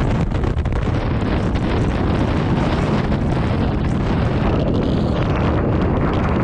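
Strong typhoon wind blowing across the microphone, a loud continuous rush of gusts with heavy low buffeting and no let-up: the gale blowing in off the ocean on the back side of a departing typhoon.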